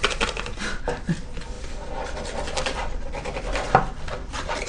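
Plastic takeout food containers being handled on a table: irregular rustling and light clicks, with one sharper knock near the end.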